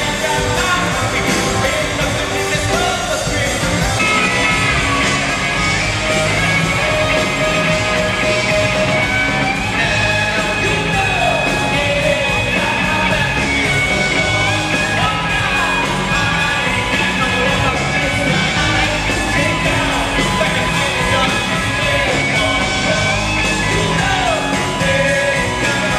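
Live rock band playing through an arena PA, with a singer over electric guitars and drums, heard from within the crowd.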